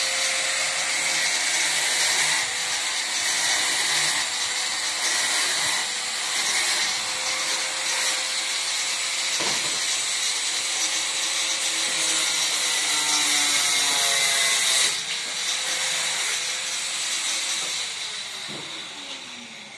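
A power tool running steadily with a high-pitched whine; it eases off about fifteen seconds in, and its motor winds down near the end.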